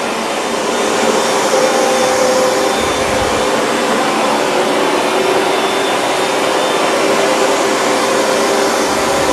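Hoover Dual Power Max upright carpet cleaner running steadily, its suction motor pulling rinse water and leftover detergent suds out of the carpet, with a steady hum under the rush of air.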